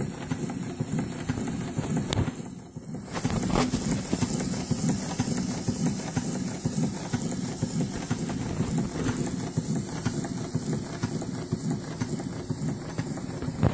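Scale model of a reversing steel mill steam engine running under low pressure: a steady, rapid clatter of its rods, valve gear and gears over the hiss of its exhaust, which briefly dips about two and a half seconds in.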